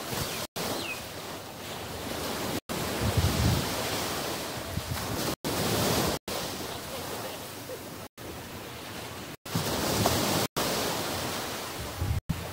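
Small surf waves washing onto a sandy beach, a steady wash of noise, with wind gusts buffeting the microphone a few seconds in and again near the end. The sound cuts out completely for a split second about eight times.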